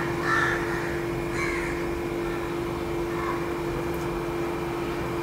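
Crows cawing: a short call at the start, another about a second and a half in and a fainter one about three seconds in, over a steady low electrical hum.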